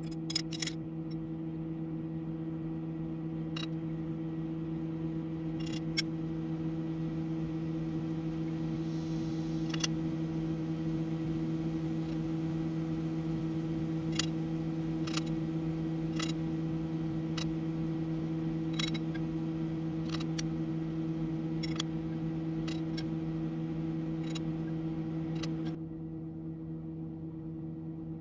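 Scattered light metallic clicks and ticks from hands adjusting the lathe while a taper is dialed in against a dial indicator, over a steady electrical hum.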